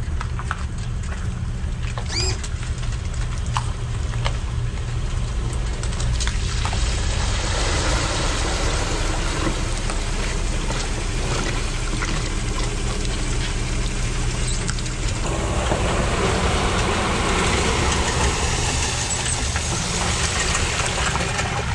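Pickup truck running as it backs a bass boat on its trailer down a boat launch ramp, with a brief squeal about two seconds in. From about fifteen seconds in, water washes and splashes up the ramp as the boat goes in.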